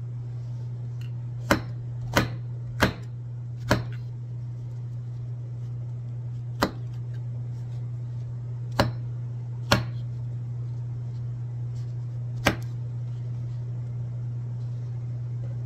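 Kitchen knife chopping white button mushrooms on a wooden cutting board: about eight sharp knocks of the blade striking the board at irregular gaps, over a steady low hum.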